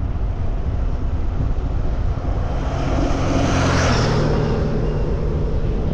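Steady wind buffeting the microphone on a moving bicycle, with a motor vehicle passing that builds from about halfway through, peaks, and fades before the end.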